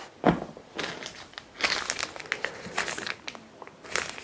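Crinkling and rustling of the small packaging packet that holds the drone's spare accessories as it is handled and opened, in irregular crackles. A soft knock just after the start.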